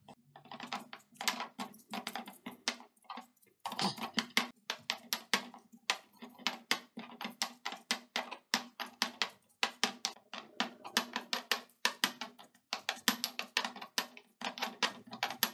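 Stone pestle pounding dried anchovies and blackened belimbing in a stone mortar: repeated sharp knocks, a few a second, with brief pauses, as the mix is ground toward sambal hitam paste.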